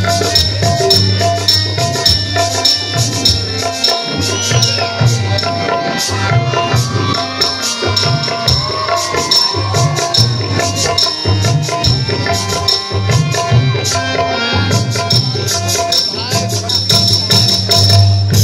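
Percussion-led music for a stage battle scene: rapid, steady drum beats with rattling, jingling percussion over a few held tones.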